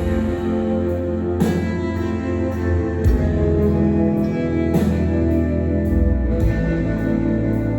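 Band playing live: held guitar chords over a heavy bass line, with a cymbal crash about every three and a half seconds.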